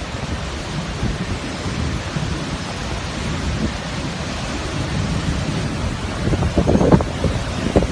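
Hurricane wind and heavy rain: a steady rushing hiss, with stronger gusts buffeting the microphone near the end.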